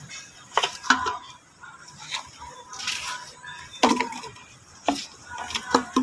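Litter being gathered with a stick: irregular sharp clicks and clatters of plastic bottles and other trash knocking together, about seven over a few seconds, with a scuff of footsteps on gravel in between.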